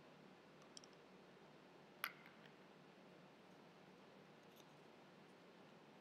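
Near silence: quiet room tone with a faint steady hum, broken by a few small clicks, the sharpest about two seconds in.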